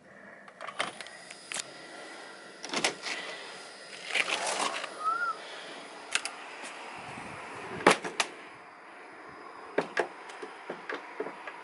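Scattered knocks and clicks, about a dozen, the loudest about eight seconds in, with a faint short chirp near the middle.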